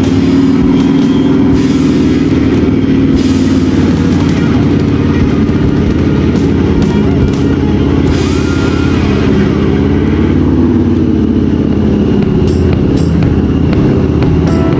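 Harley-Davidson motorcycle's V-twin engine running steadily at low street speed, heard from a helmet chin-mounted camera, with a slight dip in pitch about eight seconds in.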